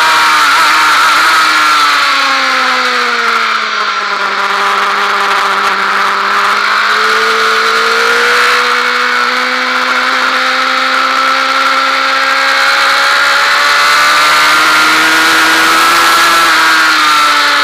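Honda Fireblade's inline-four engine at full speed on track, over steady wind rush. The engine note falls over the first few seconds as the bike slows from about 125 mph into a corner, then rises steadily as it accelerates out to about 95 mph.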